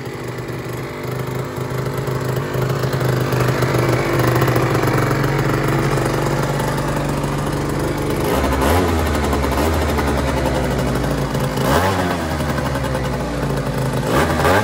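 Two-stroke Minarelli horizontal scooter engine with a freshly fitted Palini 70cc big bore kit, running steadily at first, then blipped on the throttle about three times in the second half, each rev rising and falling back.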